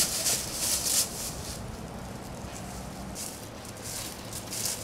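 Footsteps crunching and rustling through dry fallen leaves: a group running for about the first second and a half, then quieter, with a few more crunching steps near the end.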